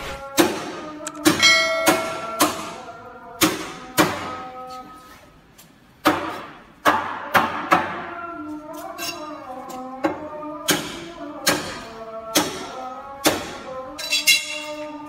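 Repeated sharp knocks, roughly one a second, each ringing on briefly. Steady pitched tones sound between them.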